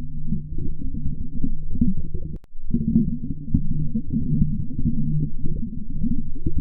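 Audio heavily muffled by a voice changer's underwater effect, heard as a continuous low rumble with nothing above the low range. It drops out briefly about two and a half seconds in.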